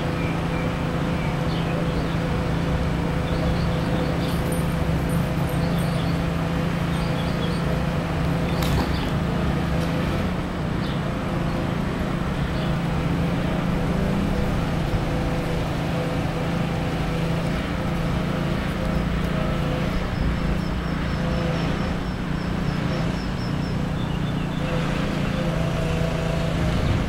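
A steady low mechanical hum, with faint high chirps now and then and a quick run of short high notes for about three seconds around twenty seconds in.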